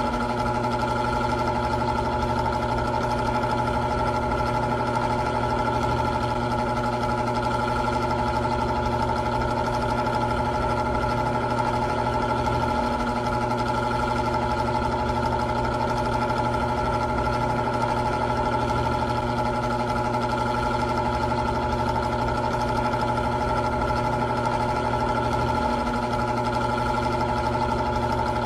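Old electric fan running steadily: a constant motor hum with several fixed tones over an even rush of air.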